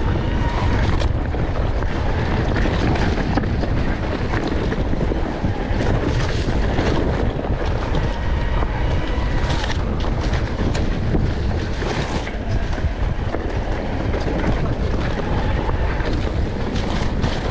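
Wind buffeting the microphone during a fast off-road trail ride, with scattered knocks and rattles from the bike over rough ground.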